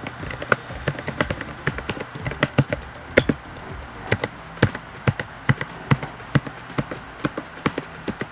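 Typing on a Rakk Pirah Plus 66-key mechanical keyboard with Outemu switches: irregular keystroke clacks, a few each second.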